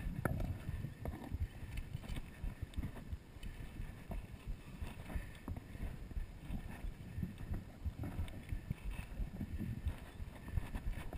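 Footsteps crunching and scuffing on a dry, rocky dirt trail, a continuous run of low, irregular thuds, heard close up from a body-worn camera.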